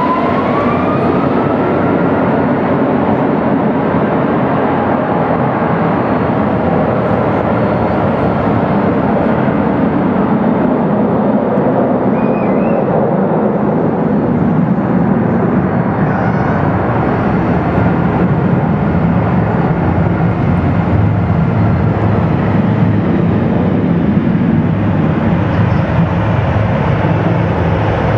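Boeing 757-300's twin Rolls-Royce RB211 turbofans spooling up to takeoff thrust: a rising whine at the start, then a loud, steady jet roar through the takeoff roll.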